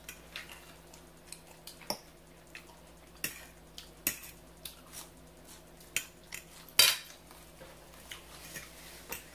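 A fork clicking and scraping on a dish while eating salad: irregular short clicks, with one louder clatter about seven seconds in.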